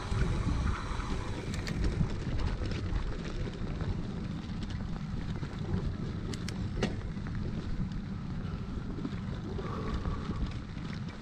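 Mountain bike riding a dirt singletrack: wind buffeting the camera's microphone over the rumble of tyres on dirt, with a few sharp clicks from the bike, the loudest about seven seconds in.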